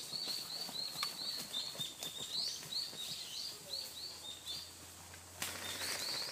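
A bird calling in a rapid, even series of short high chirps, about three a second, which pauses briefly near the end, with faint rustling underneath.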